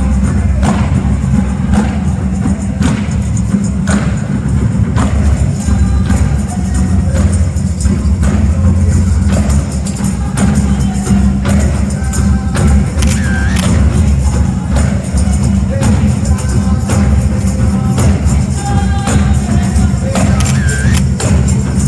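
Live Mardi Gras Indian percussion music: tambourines and drums playing a steady, dense beat with frequent sharp strikes, loud and heavy in the bass.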